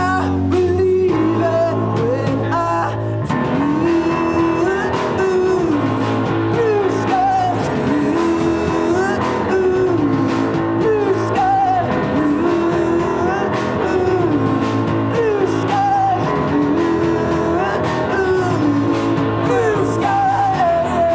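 Indie rock band playing live: electric bass and electric guitar with sung vocals, a melodic phrase repeating about every two seconds.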